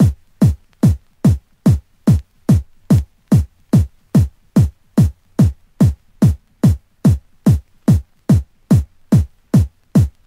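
Techno kick drum from a drum machine playing alone in a steady four-on-the-floor beat, about two and a half hits a second. Each hit is a short click that drops quickly in pitch to a low boom.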